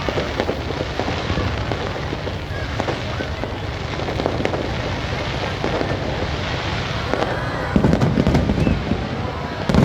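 Fireworks going off: a steady dense crackle of many small bursts, with two louder, deeper booms, one about eight seconds in and one near the end.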